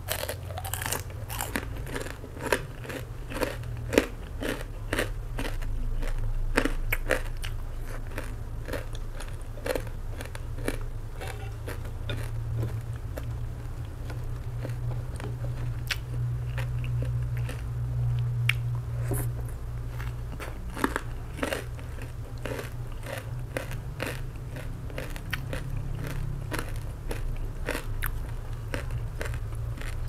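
Close-miked biting and chewing of pork cracklings, with many irregular sharp crunches, over a steady low hum.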